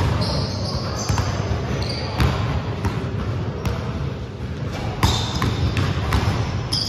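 Basketball dribbled on a hardwood gym floor: sharp bounces roughly once a second, with short high squeaks of sneakers on the wood, over a steady low rumble.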